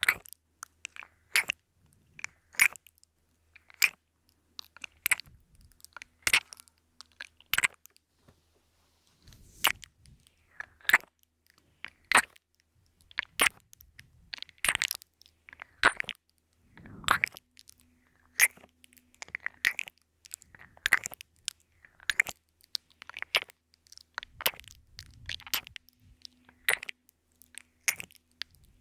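Close-up ASMR kissing and lip-smacking mouth sounds into a binaural dummy-ear microphone: short wet smacks, about one or two a second, irregularly spaced.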